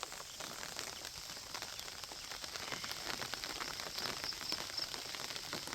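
Steady rain falling, heard as an even hiss dotted with many small drop ticks. A few faint high chirps come through a little past the middle.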